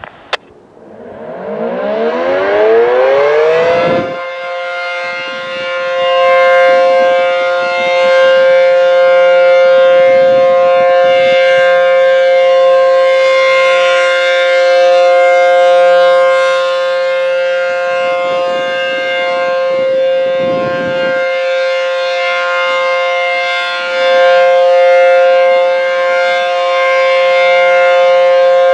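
An ACA P-15 electromechanical outdoor warning siren sounding its weekly test. It winds up in pitch over about four seconds, then holds a steady tone with slow swells and dips in loudness every eight seconds or so.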